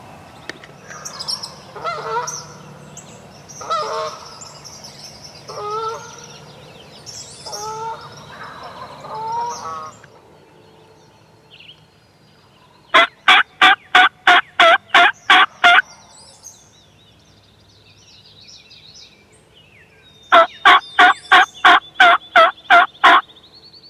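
Wild turkey gobbling five times over the first ten seconds, with songbirds chirping. Then come two loud runs of evenly spaced bird calls, about four a second for some three seconds each.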